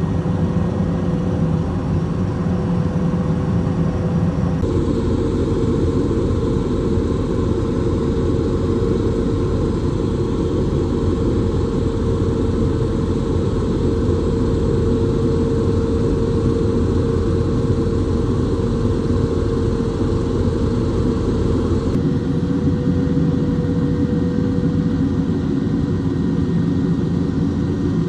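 Steady helicopter engine and rotor drone with a constant whine over it. The tone shifts abruptly about four and a half seconds in and again near the end.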